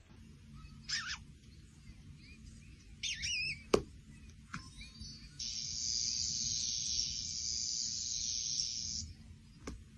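Bird-like chirps: one short chirp about a second in and a warbling twitter around three seconds. A sharp tap follows, then from about five seconds a steady hiss lasting some three and a half seconds.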